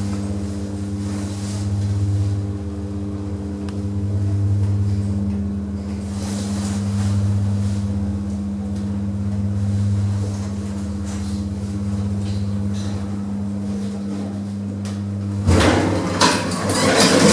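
Lift drive machinery humming steadily as the car travels between floors, swelling and easing slightly every couple of seconds. The hum cuts off suddenly about 15 seconds in and gives way to clattering and clunks as the lift arrives.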